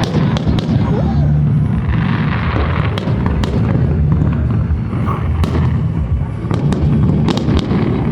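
Fireworks display: a steady low rumble of booms with many sharp cracks and pops scattered through it.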